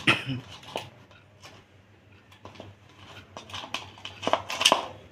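Handling noise from a ceiling fan's canopy cover and downrod being fitted by hand: scattered light knocks and clicks, a sharp one at the start and a cluster of sharper clicks about four and a half seconds in.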